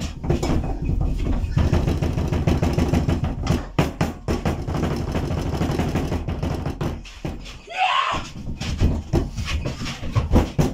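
Rapid flurry of hand chops striking raw breaded meat on a wooden cutting board, flattening and tenderising it. There is a short vocal cry about eight seconds in.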